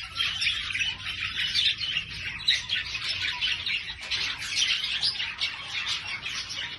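Small birds chirping and twittering continuously: many quick, high chirps several times a second.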